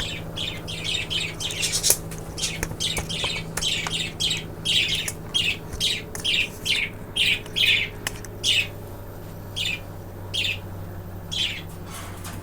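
Pet budgerigar calling in a run of short, harsh chirps and squawks, several a second at first and thinning to one every second or so toward the end, over a steady low hum.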